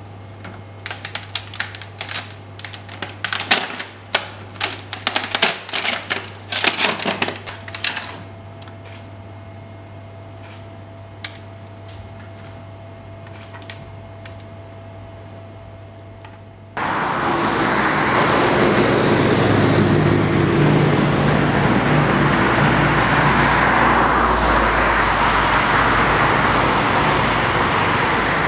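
A quick run of sharp plastic clicks and snaps for about eight seconds: support material being clipped and broken off a 3D-printed ibis dummy with cutters. A little past halfway a loud, steady rushing noise cuts in abruptly and holds.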